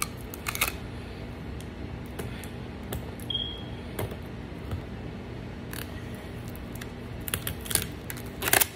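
Scattered plastic clicks and taps as hands grip and work the plastic top of a facial steamer, with a cluster of louder clicks near the end and a brief high squeak about three seconds in.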